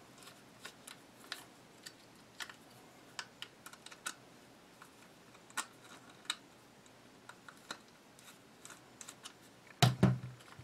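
Scattered light clicks and ticks of a small Phillips screwdriver and the X95's plastic handguard rail being worked on and handled, with a louder knock near the end.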